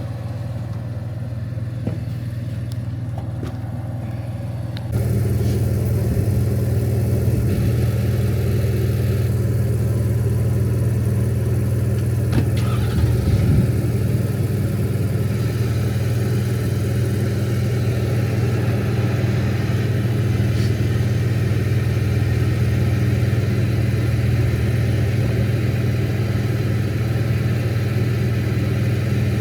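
An engine idling steadily, with a low hum that steps up in loudness and fullness about five seconds in and then holds even.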